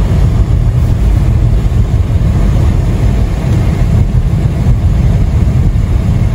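Steady low rumble of a car driving on a snow-covered road, heard from inside the cabin: road and wind noise.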